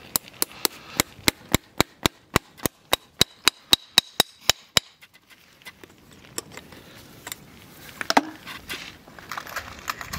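Farrier's hammer driving a horseshoe nail through a steel shoe into the hoof wall: about eighteen sharp metallic taps, roughly four a second, stopping about five seconds in. Then quieter scraping and a sharper click about eight seconds in as the nail is worked with the hammer's claw.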